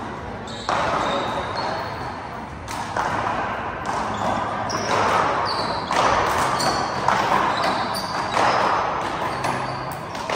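Handball rally: a rubber handball smacks against the front wall and floor every second or two, each hit echoing through the hall, with short sneaker squeaks on the court floor.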